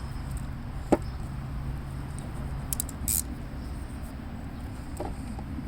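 Mounting bolts, washers and nuts being handled while a starter switch is bolted on: a sharp knock about a second in and a few light metallic clicks around three seconds in, over a steady low hum.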